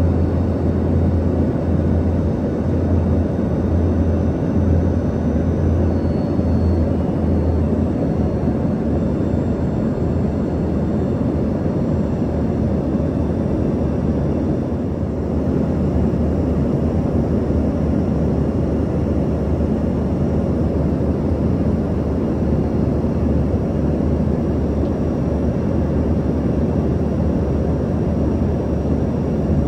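Steady cabin noise inside an Embraer ERJ-145 regional jet: a constant low rumble and rush from its two rear-mounted Rolls-Royce AE 3007 turbofans, with a deep hum underneath and faint high whines.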